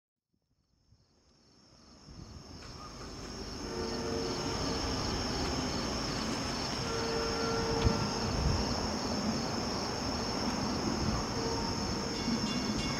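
Crickets chirping steadily over the low rumble of an approaching diesel freight locomotive, fading in over the first few seconds. Faint blasts of the locomotive's Nathan P3 horn sound several times in the distance, growing toward the end.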